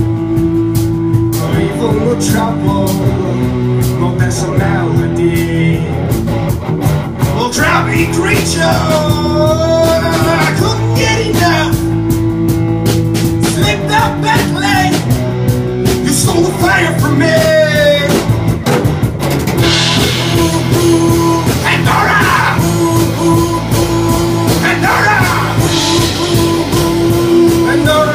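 Rock band playing live: electric guitar, bass guitar and drum kit, with a male singer's voice coming in over the instruments at intervals.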